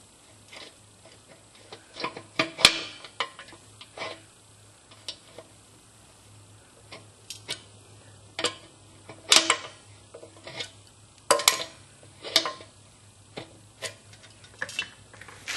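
Metal wrench clicking and clinking in irregular bursts as it works the old, stripped drain plug out of the air compressor tank.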